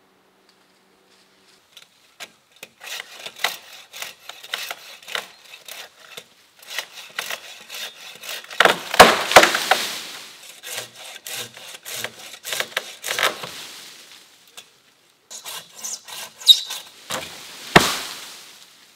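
Branches and twigs of a fallen beech tree cracking and snapping, with leaves rustling, as someone climbs about in its crown. The crackling is irregular, with the loudest snaps about halfway through and just before the end.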